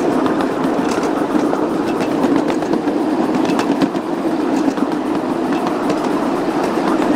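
Ride-on miniature railway train rolling along the track: a steady rumble of the wheels, with scattered clicks over the rail joints.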